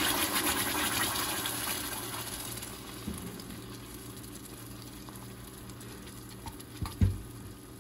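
Blended red chile adobo poured into hot oil in a stainless steel pot, sizzling strongest at first and fading over the first few seconds to a quieter sizzle as the sauce settles. A thump near the end.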